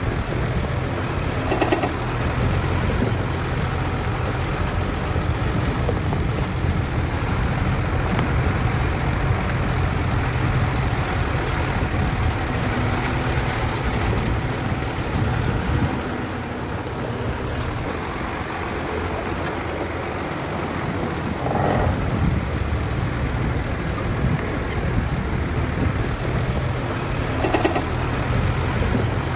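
Diesel engine of heavy earthmoving machinery running steadily, easing off for a few seconds past the middle, with three brief squeals.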